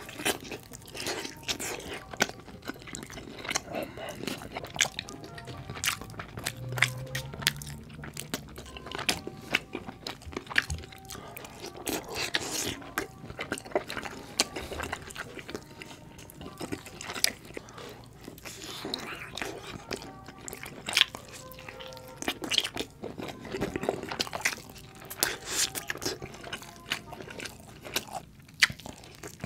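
Close-miked eating sounds of barbecue chicken wings and ribs: biting, crunching and chewing, with many sharp smacks and clicks, over background music.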